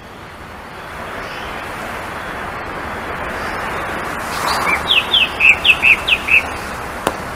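A bird chirping: a quick run of about seven short, falling notes in the second half, over a steady rushing outdoor background noise. A single sharp click comes just before the end.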